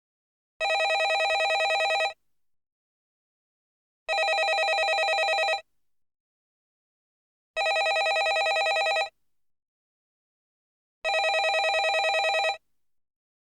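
Landline telephone ringing: four rings of about a second and a half each, with about two seconds of silence between them, each ring a steady trilling tone.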